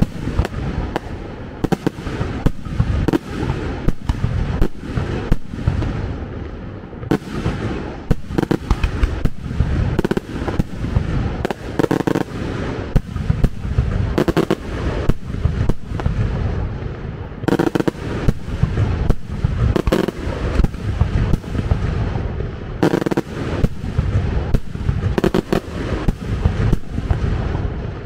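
A loud fireworks display: rapid bangs, about two to three a second, over a steady low rumble.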